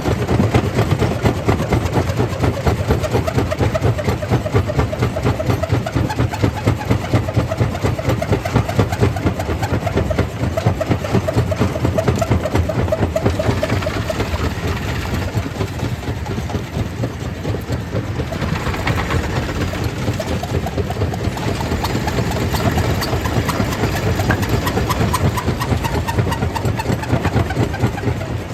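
Stone crusher plant machinery running steadily, a loud continuous mechanical rumble with a fast, even throb.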